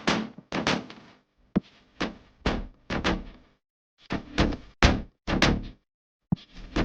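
A run of sharp percussive thumps and knocks, about two a second, broken by short stretches of dead silence: impact hits in an edited soundtrack.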